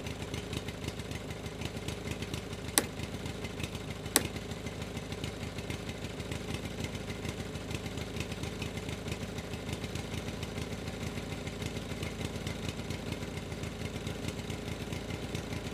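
An engine idling steadily with a fast, even chug, with two sharp clicks about three and four seconds in.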